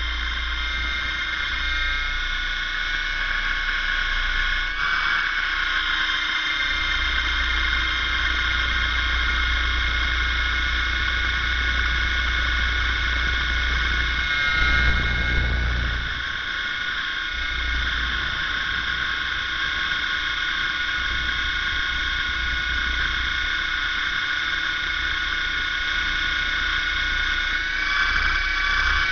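Radio-controlled model helicopter running, heard from a camera mounted on its spinning rotor: a steady high whine of several tones from the motor and drivetrain over a low rumble.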